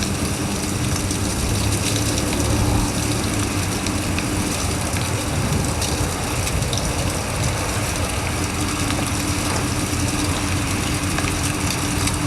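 Steady vehicle engine and road noise with a constant low hum.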